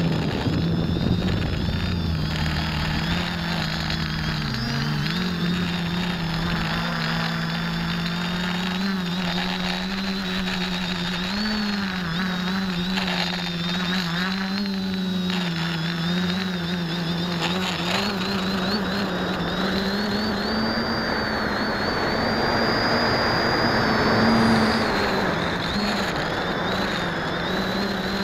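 X550AIOP quadcopter's electric motors and propellers buzzing in flight, heard from the keychain camera on board. The steady hum rises and falls slightly in pitch with throttle, dipping briefly about five seconds in and swelling near the end.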